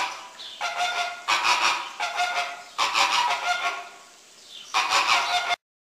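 Flamingos honking in a rapid run of loud, repeated calls, with a short lull just past the middle, cutting off abruptly near the end.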